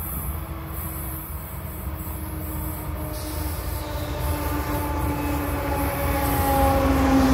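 BNSF diesel-electric locomotive hauling passenger cars as it approaches along the track. Its engine rumble and running noise grow steadily louder, with a steady hum that slowly drops a little in pitch.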